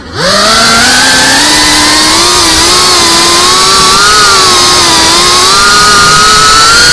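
Cinewhoop FPV quadcopter's brushless motors and ducted propellers whining, recorded on the drone itself. The whine dips sharply at the very start as the throttle is cut, then climbs back and wavers up and down with the throttle, creeping slowly higher toward the end.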